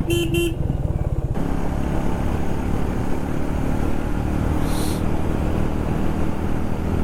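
Motorcycle engine running steadily while riding, with wind and road noise growing louder about a second in.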